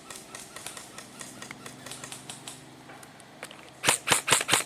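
Airsoft gunfire: faint, steady, rapid clicking shots from guns farther off. About four seconds in, a nearby airsoft gun opens up in a loud string of rapid shots, about five a second.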